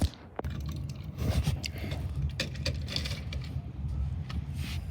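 Handling noise: a sharp click at the start, then scattered light clicks and rustling as small objects are picked up and moved about.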